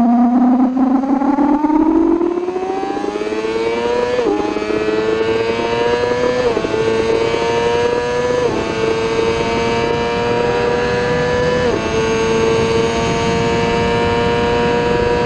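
A 1000 cc superbike engine accelerating hard through the gears, with wind rushing over the bike-mounted microphone. The pitch climbs, drops sharply at four quick upshifts, then holds high at speed near the end.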